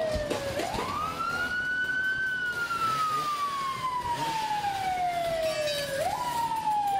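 Emergency vehicle siren wailing. Its pitch climbs quickly about half a second in, slides slowly down for about four seconds, then jumps back up near the end and starts falling again.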